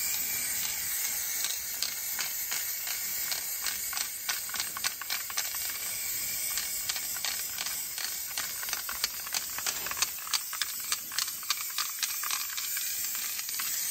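Paint spraying onto a wall: a steady spray hiss, with a run of short light clicks through most of it.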